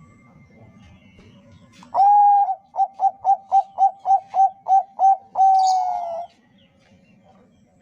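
Zebra dove of the perkutut bangkok strain singing one full song phrase. It opens with a held coo about two seconds in, runs into about ten quick short coos, and ends on a long coo that falls in pitch.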